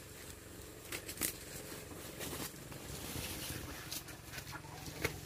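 Faint rustling and scattered light steps of someone walking over leaf litter among plants, a soft crackle every second or so.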